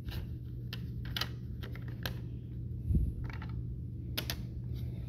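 Hard plastic PSA graded-card slabs clicking and clacking against each other as they are handled and restacked on a wooden table, with one duller knock about three seconds in.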